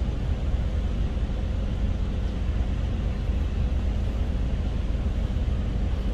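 A boat's engine running steadily: an even low rumble with a faint steady hum above it.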